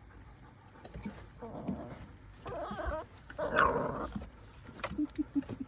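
Puppies whining and whimpering: a few short pitched cries, the loudest a high bending whine about three and a half seconds in, then a quick run of short low grunts near the end.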